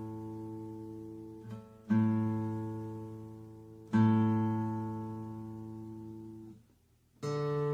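The open A string of an acoustic guitar plucked and left to ring out, about every two seconds, while it is tuned down from slightly sharp. Near the end the next, slightly higher string is plucked.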